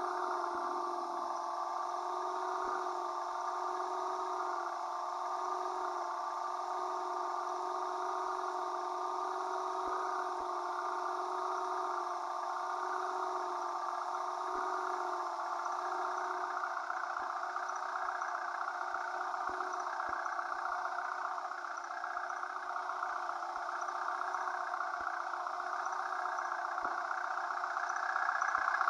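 Vehicle engine running steadily with a constant droning hum, getting a little louder near the end.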